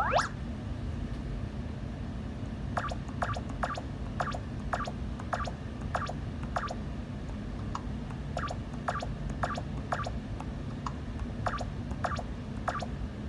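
Photo vending machine's touchscreen keyboard giving a short click for each key press as a username is typed: about twenty clicks, irregularly spaced a third to half a second apart, starting about three seconds in. It opens with a quick rising sound effect as the login screen comes up, over a steady low hum.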